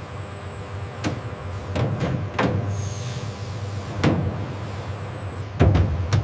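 Factory machinery running with a steady low hum and a faint high whine, broken by about six sharp metallic clunks. The last two, near the end, are the loudest.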